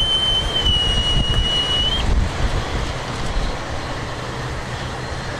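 A boatswain's pipe sounding piping honours: one high held note for about two seconds that dips slightly and then rises sharply just before it stops. Under it there is a steady low rumble.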